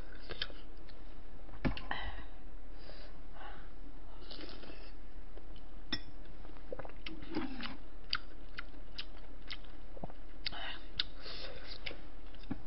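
Close-miked eating sounds: chewing and soft mouth smacks with scattered short clicks, as a spoon and chopsticks work through bowls of rice and meat.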